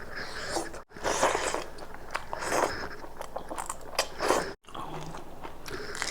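Close-miked mukbang eating: several crunchy bites and chewing, with loud crunches about a second in, midway and near four seconds.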